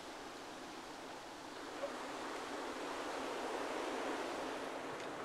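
Steady rushing of wind and surf, with no distinct knocks or clicks.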